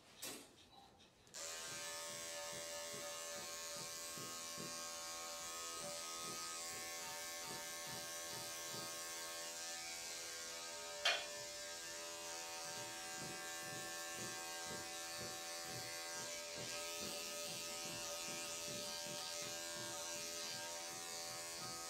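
Corded electric dog grooming clippers switching on about a second in and running steadily as they shave through a dog's coat. One sharp click about halfway through.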